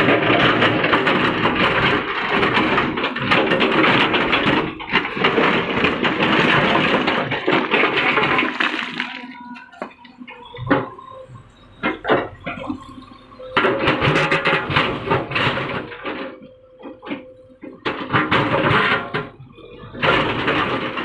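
Tata Hitachi Shinrai Prime backhoe loader working hard rock: a harsh, grating rush of broken rock and gravel scraping and tumbling against the steel bucket, with stones clicking through it. A long stretch of about nine seconds, then several shorter bursts with quieter lulls between.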